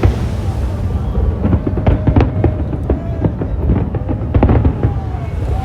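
Fireworks going off in a rapid string of bangs and crackles over a deep rumble, with music playing along.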